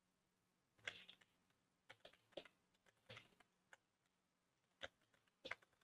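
Faint, irregular keystrokes of typing on a computer keyboard.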